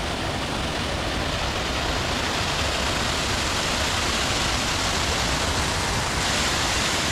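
Waterfall rushing: a steady, dense roar of falling water heard up close.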